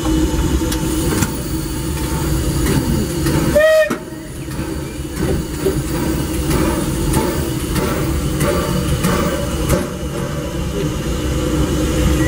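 Narrow-gauge steam train running, a low steady rumble with scattered clanks. A short high tone about three and a half seconds in briefly rises and falls.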